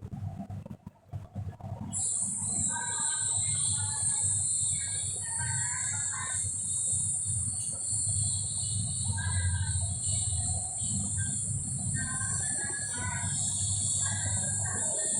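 Insects droning steadily at a high pitch, starting suddenly about two seconds in, with short scattered chirps over a low background hum.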